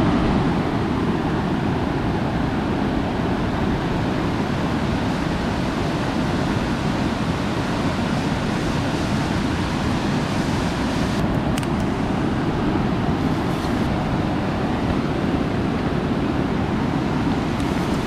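Steady rushing of a swollen river pouring over rocks, its water high after heavy rain.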